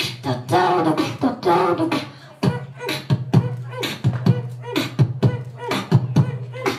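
A boy beatboxing into a handheld microphone held close against his mouth. He starts with vocal sounds that slide in pitch, then from about two and a half seconds in keeps up a steady beat of sharp percussive strokes, about three a second.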